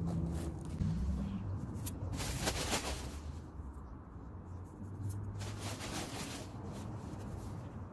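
Rustling and scraping of dry ornamental grass and a plastic garden waste bag being handled, in two bursts about two and a half and six seconds in, over a steady low rumble.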